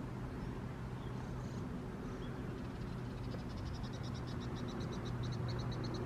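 A quick, even trill of high ticking notes, about seven a second, from a small animal, starting about two and a half seconds in. Under it is a steady low hum.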